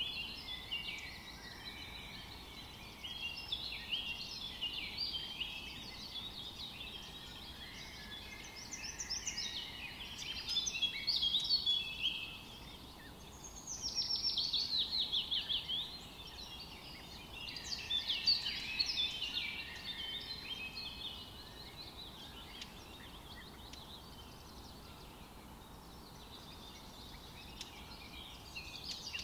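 Small birds chirping and chattering over a faint background hiss, with a fast run of repeated notes about fourteen seconds in.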